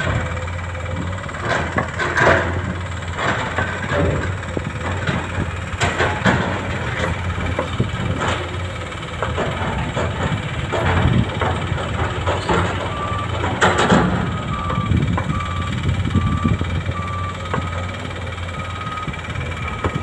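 Heavy construction machinery running: a steady diesel engine drone with scattered clanks and knocks. From about halfway through, a reversing alarm beeps about once a second.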